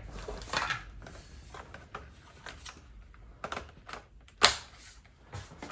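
Plastic parts of a cordless stick vacuum clicking and knocking as the extension pole is handled and fitted, with one sharp click about three-quarters of the way through.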